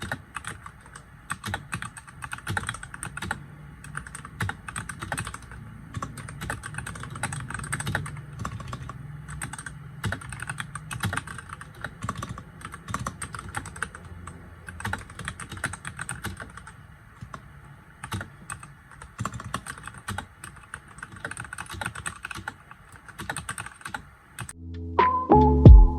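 Continuous typing on a Royal Kludge RK100 mechanical keyboard with red linear switches: a dense, irregular run of keystroke clacks. Near the end, loud background music comes in over it.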